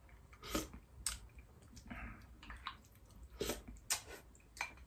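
Someone tasting jjamppong broth: a sip and chewing, with several short clicks and smacks spread through it.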